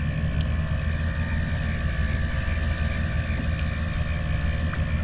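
Boat engine running steadily while the boat sits over the fishing spot. It is a constant low drone with a faint steady whine above it.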